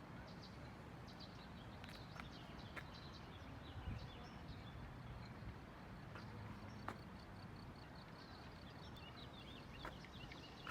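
Faint outdoor ambience: a steady low wind rumble with faint bird chirps at intervals and a few light clicks.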